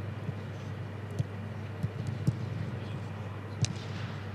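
Footballs being kicked during passing drills: several sharp, irregularly spaced thuds over a steady low hum.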